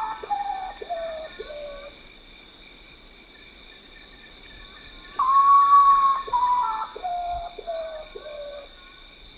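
Common potoo (urutaú) singing at night: a long held whistle followed by a run of separate notes stepping down in pitch. The end of one song falls at the start and a full song comes about five seconds in, over a steady pulsing chorus of night insects.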